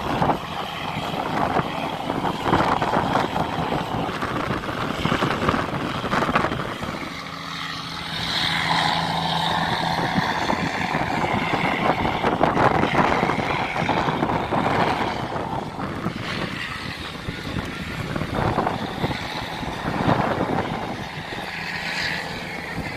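Tugboat diesel engine running under tow, mixed with wind noise rising and falling over the microphone.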